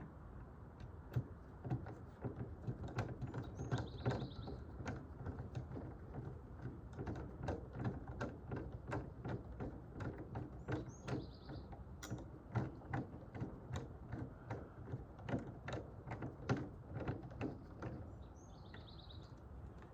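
Irregular small clicks and knocks from a sliding door lock and its parts being handled and fitted to the door. A short bird call comes three times, each a quick high note followed by a brief trill.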